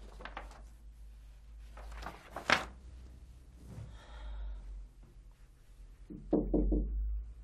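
Large sheets of paper rustling as they are handled and put down, with one sharper crackle about two and a half seconds in. Near the end there is a brief vocal sound, like a sigh.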